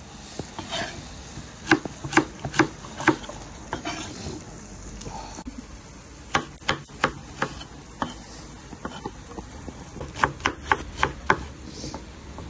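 Kitchen knife chopping carrots into strips on a wooden cutting board: sharp knocks of the blade striking the board, in short quick runs with pauses between.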